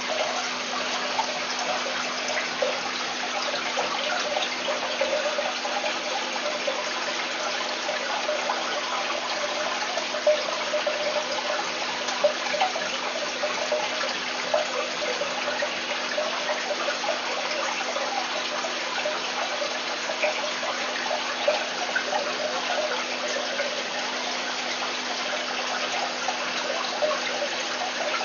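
Aquarium filtration water running, trickling and splashing steadily over a low, steady hum, with a few slightly louder splashes now and then.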